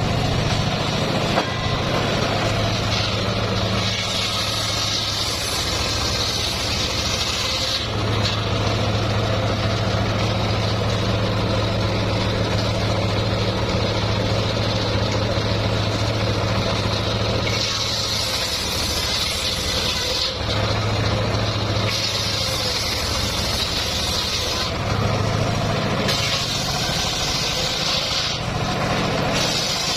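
Engine-driven homemade circular sawmill running steadily. Several times the blade bites into a log, bringing a higher, hissing cutting sound that lasts a few seconds each time.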